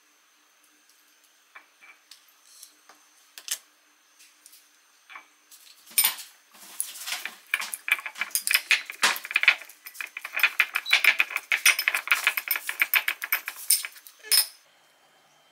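A metal utensil scraping and clicking rapidly against a bowl for about eight seconds as avocado is mashed with lime for a simple guacamole. A few scattered clicks and taps come before it.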